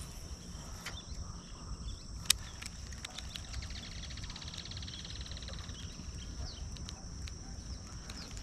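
Lakeside outdoor ambience: insects chirring in a steady high drone over a low rumble. There is one sharp click about two seconds in, and a fast ticking runs for a couple of seconds in the middle.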